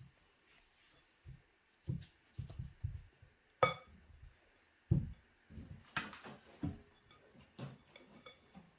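Dishes and utensils being handled on a kitchen counter: a run of soft low knocks, with a sharp ringing clink a few seconds in and another sharp knock about six seconds in.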